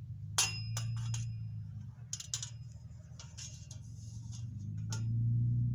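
A series of sharp metallic clinks and clanks, some ringing briefly, over a low steady hum that grows louder near the end.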